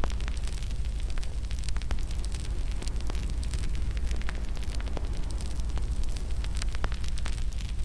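Wood fire burning in a fireplace: steady low rumble of the flames with frequent irregular sharp crackles and pops.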